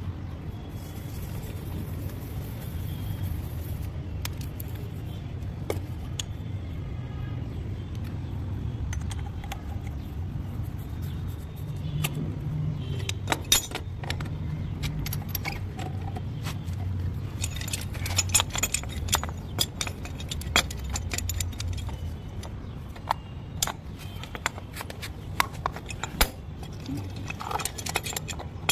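Metal clinks and clicks of pipe wrenches being handled and tightened on a threaded brass fitting, coming thickly in the second half over a steady low rumble.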